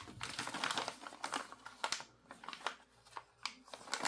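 Faint, irregular clicking and crinkling of small RC car parts and their plastic packaging being handled.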